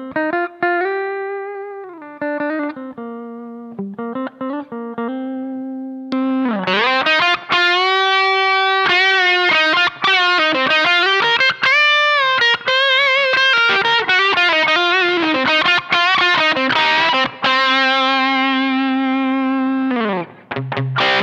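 Donner DST-100 Strat-style electric guitar through a Donner Morpher Distortion pedal with a little reverb, playing a distorted lead line of single notes with string bends and vibrato. The first notes are sparse, with bent notes held and let ring. About six seconds in, the playing grows louder and busier, with bends up and down. Near the end comes a long held note, then a drop to low, chugging notes.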